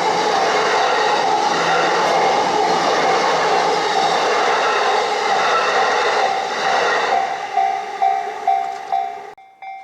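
Yamanote Line train passing over the level crossing with a dense rumble of wheels and cars. Through it the crossing's warning bell rings about twice a second. The train noise thins out about seven seconds in and stops abruptly near the end, leaving the bell ringing on its own.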